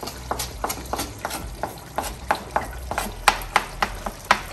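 Wooden spoon tapping and scraping chopped coriander off a plastic chopping board into a pot: a run of sharp clicks, about three or four a second.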